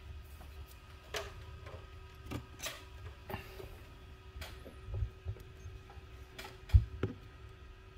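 Scattered light clicks and taps of small hand tools and a motorcycle brake master cylinder being handled and set down on a towel-covered workbench, with one soft low thud near the end. A faint steady hum runs underneath.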